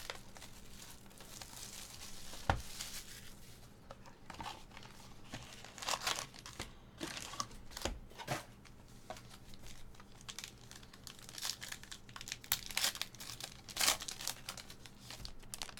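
Foil trading-card pack wrappers crinkling and being torn open, along with cardboard box and card handling: a run of rustles and sharp tears, busiest about six seconds in and again between twelve and fourteen seconds.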